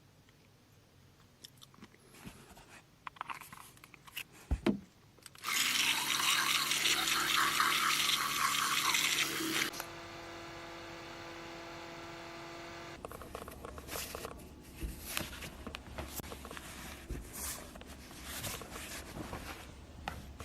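Teeth being brushed with a toothbrush: short, irregular scrubbing strokes through the second half. Before that come a few small clicks, then a loud hissing rush with a hum under it for about four seconds, then a steadier hum for about three seconds.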